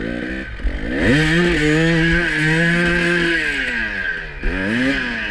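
2018 KTM EXC 300 TPI's single-cylinder two-stroke engine revving. Its pitch rises about a second in and holds steady on the throttle for a couple of seconds, then drops off, followed by a short blip of the throttle near the end.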